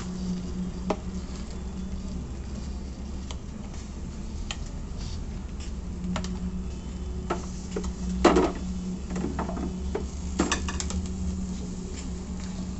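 Serving utensils clinking and knocking against a sizzler plate while noodles are laid onto it, in scattered strokes with the loudest knock about eight seconds in, over a steady low hum.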